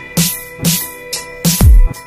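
Electronic dance music with a steady beat of deep bass hits that drop in pitch, sharp hits over them and held synth tones.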